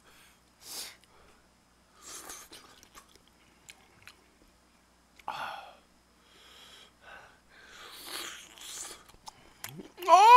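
Close-miked eating: a person chewing and slurping udon noodles from a spicy broth, in short scattered bursts. Just before the end, a rising voice sound begins.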